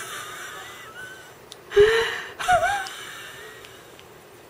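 A woman laughing helplessly in breathy gasps and wheezes, with two short, loud, high-pitched squeals near the middle.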